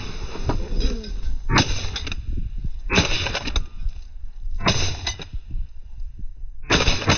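Four shotgun blasts fired at passing geese, spaced one to two seconds apart, each sharp and fading quickly.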